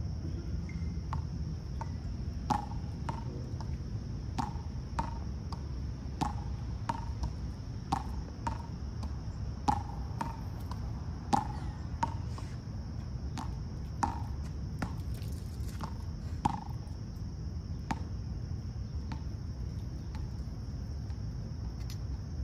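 Steady, high-pitched insect chorus in summer vegetation, with a low background rumble. Over it comes a series of short, sharp clicks or chips, about one to two a second, from about two seconds in until about eighteen seconds.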